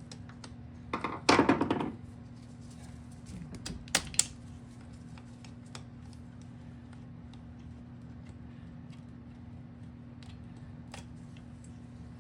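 Hand tools clicking and clanking on the metal parts of a small dirt bike's front wheel assembly as it is taken apart, with a loud rattling burst about a second in and two sharp knocks about four seconds in. A steady low hum runs underneath.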